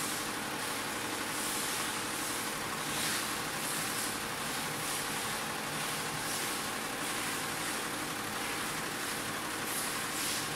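Butterfly ten-head, nine-needle embroidery machine stitching garments at 750 rpm: a steady, rapid mechanical clatter of the needle heads running together.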